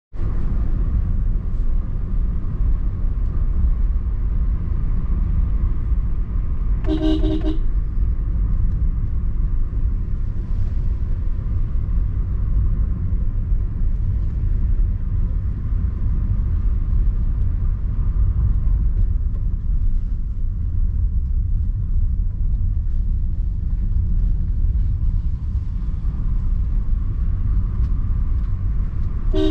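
Steady low rumble of road and engine noise inside a moving Suzuki car's cabin. A car horn sounds once, briefly, about seven seconds in, and again for an instant at the very end.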